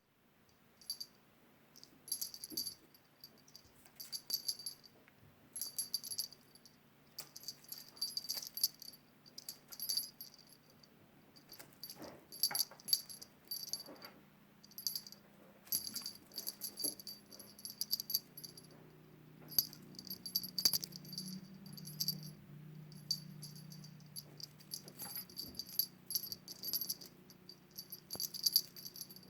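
A small metal jingle bell, as on a cat toy, shaken in short jingling bursts every second or two, with a faint low hum underneath.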